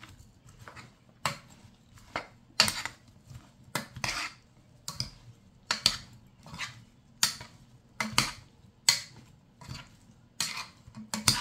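Spice-coated raw mango chunks being tossed and mixed by hand in a pot: repeated short scraping, clattering strokes of the pieces against the pot, one or two a second.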